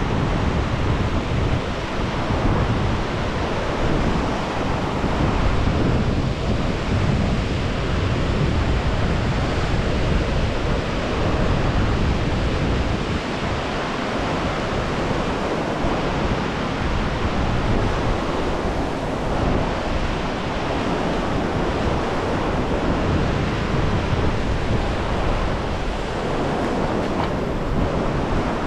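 Fast mountain river rushing through rapids and around boulders: a steady, loud whoosh of white water.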